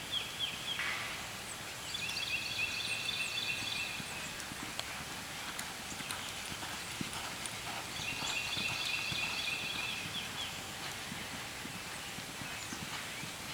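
Faint hoofbeats of a horse galloping on soft dirt. A high, banded buzzing call comes twice, each about two and a half seconds long, and there are scattered small chirps.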